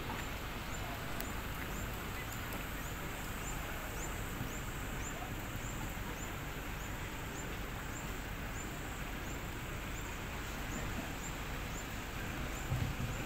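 Steady outdoor background noise with a short, high, falling chirp repeating about twice a second, like a calling insect or bird. There is a brief low thump near the end.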